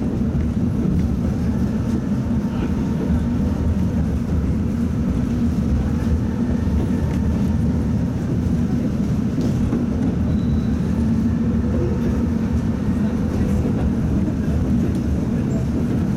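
Tatra T3 tram running after setting off from a stop: a steady low rumble of the wheels on the rails and the traction drive, with a faint higher whine above it.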